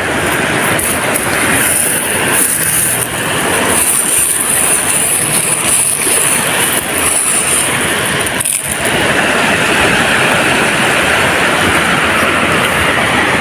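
Sea surf on a beach: waves breaking and washing in as a continuous rushing noise that swells fuller about nine seconds in.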